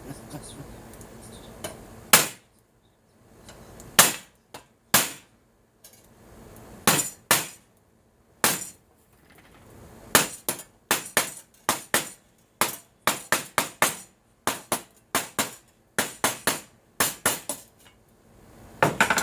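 Hammer blows on an aluminum brace being shaped against metal, sharp ringing clinks. A few spaced strikes come first, then a steady run of about three blows a second through the second half.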